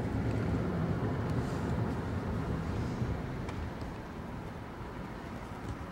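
Car driving, heard from inside the cabin: a steady low road-and-engine rumble that eases off somewhat over the last couple of seconds.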